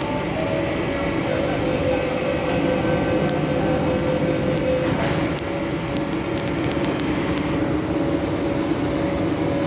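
MTR South Island Line S-train, a CNR Changchun electric multiple unit, standing at the platform with a steady hum from its equipment while its doors and the platform screen doors close with a few clunks.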